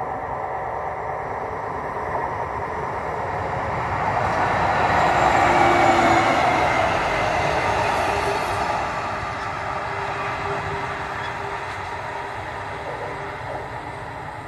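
A Press class 204 diesel locomotive hauling a track tamping machine passing by, its engine and rolling wheels building to a peak about five to seven seconds in, then fading as it moves away.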